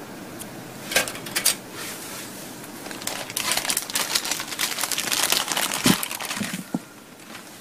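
A few sharp clicks about a second in, then several seconds of dense crinkling, rustling handling noise that stops shortly before the end.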